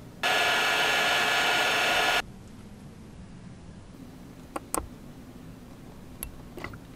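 A small handheld rotary tool's motor runs at high speed for about two seconds with a steady whine, starting and stopping abruptly. A few light ticks of a fine metal tool on the work mat follow.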